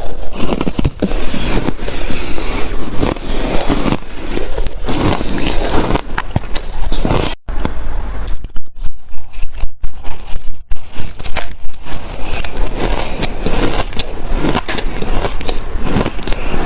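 Shaved ice bitten and crunched close to the microphone: a dense run of loud, crackling crunches, with a few brief breaks in the middle.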